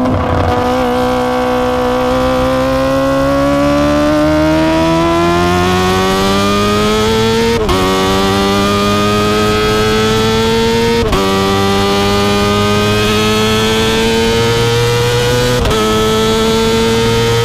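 Kawasaki ZX-25R's 249 cc inline-four running through an Akrapovic exhaust, accelerating hard: the pitch climbs steadily and three times briefly drops and climbs again as it shifts up a gear.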